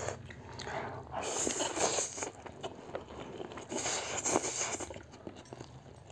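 Mouthfuls of instant noodles being slurped in, in two long, loud slurps about a second in and again about four seconds in, with quieter chewing between.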